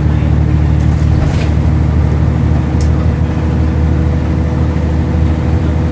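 Scania N113CRB bus's rear-mounted diesel engine running steadily, heard inside the passenger cabin as a loud drone with a faint steady whine over it and a couple of light clicks from the body.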